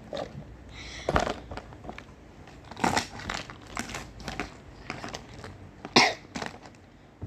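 A person coughing three times, short and sudden, with smaller clicks and crinkles between the coughs.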